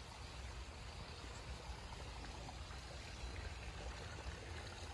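Faint, steady outdoor background noise: an even rushing hiss, heaviest in the low end, with no distinct events.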